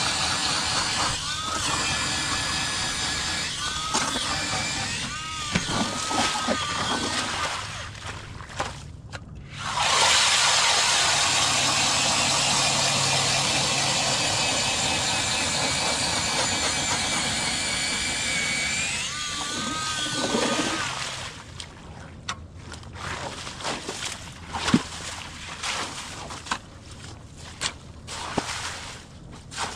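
Power ice auger's motor running hard as it bores into the lake ice. The sound eases off briefly about eight seconds in, runs on steadily, and winds down about twenty seconds in. After that come quieter knocks and scrapes as the auger is worked back out of the hole.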